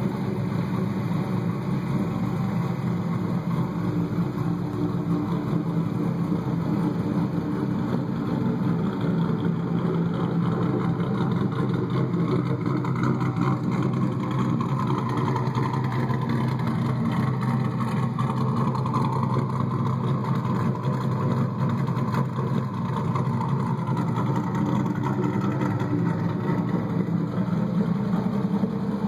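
2001 Pontiac Trans Am's LS1 V8 idling steadily through its exhaust.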